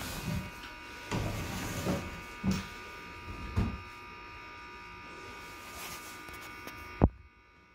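Cordless drill/driver motor whining at a steady pitch while screws are driven into a wooden stretcher-bar frame, with a few knocks of wood in the first few seconds. The whine stops with a sharp click about seven seconds in.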